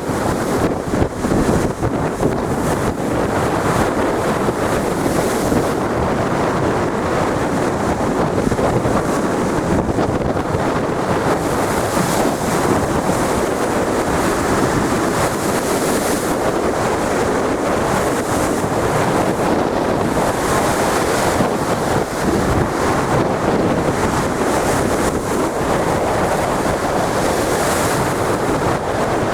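Big ocean waves breaking in a steady roar of surf, with hissier surges every few seconds, and wind buffeting the microphone.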